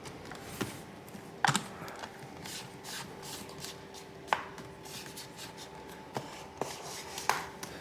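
Scattered sharp plastic clicks and taps, about six in all, from hands pressing and handling a laptop's plastic display bezel and lid, with a faint steady hum underneath.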